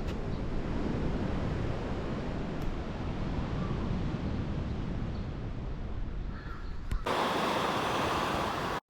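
Wind buffeting the microphone, a steady low rumble. About seven seconds in it gives way abruptly to the even hiss of ocean surf.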